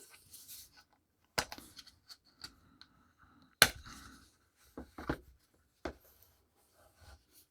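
Handling noise from a wristwatch and its packaging: a handful of sharp clicks and taps, the loudest about three and a half seconds in, with faint rustling between.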